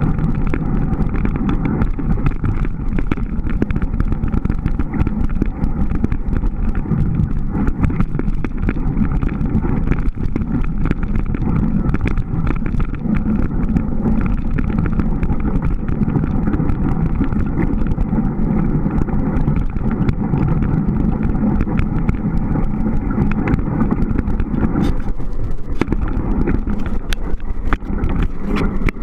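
Surly Moonlander fat-bike ridden over snow: a loud, steady rumble of the wide tyres rolling and the bike rattling, with many small clicks throughout.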